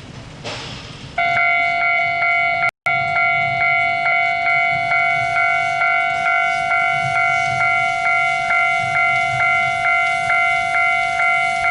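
Electronic warning bell ringing in a steady repeating pattern, about two strikes a second, starting about a second in.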